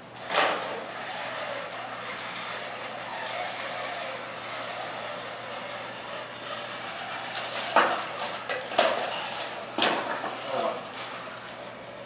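Small wheeled soccer robots whirring as they drive around the carpeted field. There is a sharp knock near the start and three more about a second apart near the end.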